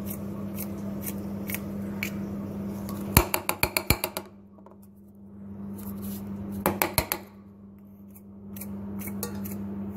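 Plastic bottle of baking soda shaken and tapped over a steel mixing bowl to sprinkle in a pinch. It gives a quick run of about a dozen sharp clicks about three seconds in and a few more around seven seconds, over a steady low hum.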